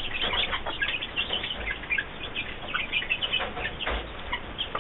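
Newly hatched chicks peeping, a quick run of short high chirps.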